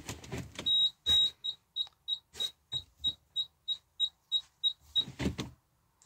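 Electronic beeping: two longer high beeps, then about a dozen short beeps at roughly three a second, stopping about five seconds in, followed by a low thump.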